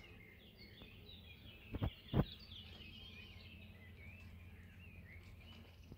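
Small birds twittering and chirping continuously over a low steady outdoor rumble, with two short dull knocks close together about two seconds in.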